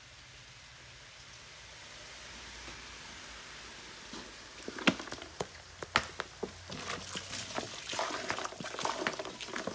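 Faint hiss, then from about halfway a run of sharp clicks and crackles that grows denser near the end.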